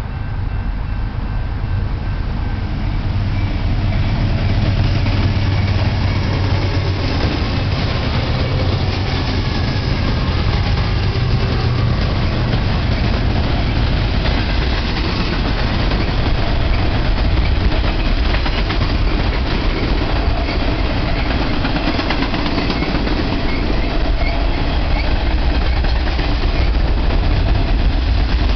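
Freight train passing close by: the diesel locomotives' engines run deep and strongest in the first half, then intermodal cars with stacked shipping containers roll past with a steady rumble and wheel clatter on the rails.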